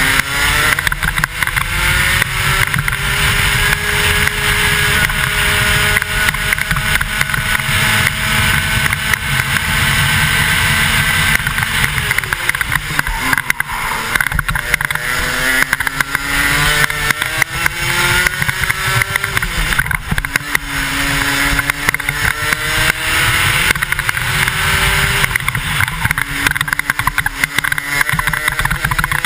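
125cc two-stroke racing kart engine at speed, its revs climbing steadily along a long straight, then falling sharply about 12 seconds in as the driver lifts off for a corner, and rising and falling twice more through the following turns. Heavy wind rush over the helmet-mounted camera runs underneath.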